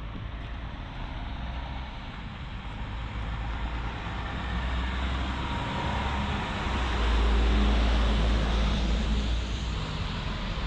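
A road vehicle passing close by, a low engine rumble and tyre noise that grows louder to a peak about seven seconds in, then fades.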